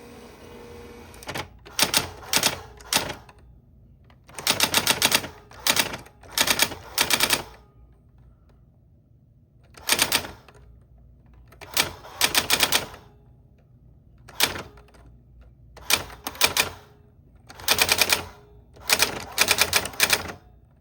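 Typewriter keys striking in quick bursts of several clacks each, with short pauses between the bursts as words are typed.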